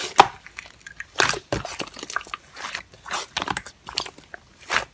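Slime (액괴) being squished and pressed by hand, giving an irregular string of crackling, clicking pops.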